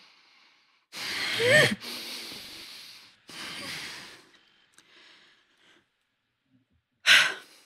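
A woman sighing and breathing heavily. A loud voiced sigh with a rising pitch comes about a second in, followed by two long breathy exhales, and a sharp intake of breath near the end.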